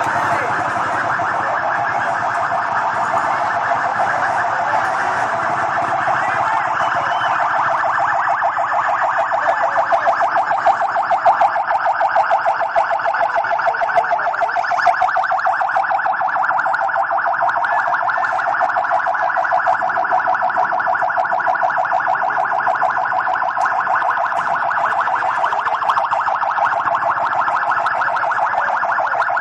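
An alarm sounding without a break: one steady tone that pulses rapidly and never rises or falls in pitch. It is a little louder around the middle.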